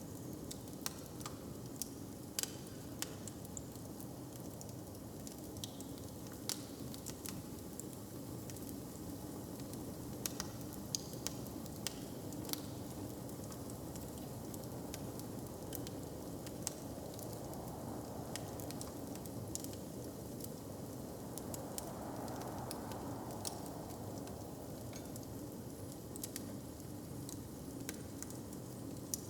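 Fire crackling in a hearth, with irregular sharp pops scattered throughout over a steady low background; a soft swell rises and fades around two-thirds of the way through.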